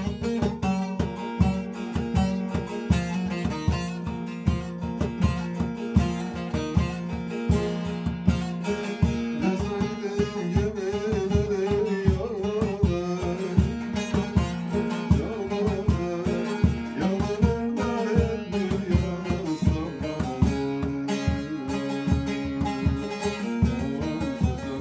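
Turkish folk song (türkü) played on a plucked string instrument, with quick, even strokes under a wavering melody.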